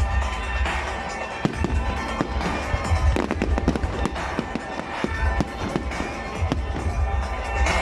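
Fireworks going off in a rapid string of sharp bangs and crackles, thickest in the middle, over music with a heavy bass.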